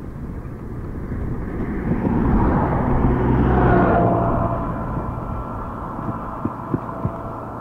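A motor vehicle passes close by on the road, its engine and tyre noise swelling to a peak about three seconds in and then fading. Steady wind noise on the microphone of the moving bicycle runs underneath.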